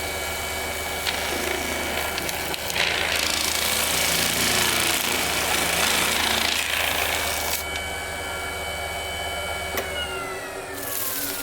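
Woodworking lathe running with a steady hum and whine while a resin-and-driftwood piece is worked, a loud rushing hiss for about five seconds in the middle. About ten seconds in the motor is switched off and the whine falls steadily in pitch as the lathe spins down.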